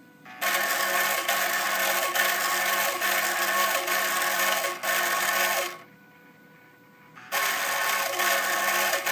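Small high-speed motor of a homemade mini drill whirring. It cuts out for about a second and a half partway through, then starts up again.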